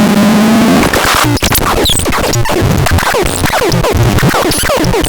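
Electronic, synthesizer-like sound: a dense run of quick falling pitch sweeps over a pulsing low beat, with a loud scratchy sweep about a second and a half in.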